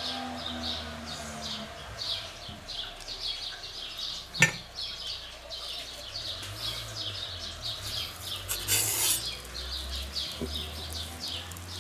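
Small birds chirping over and over. A sharp clunk comes about four seconds in as the ceramic lid of a mini kamado grill is opened. A brief rustle follows near the end as the pizza on its baking paper goes onto the pizza stone.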